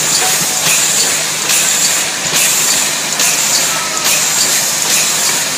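Hard-soap production line machinery running: a loud, steady mechanical noise with a low hum and a hiss that swells in a rhythm of roughly once a second.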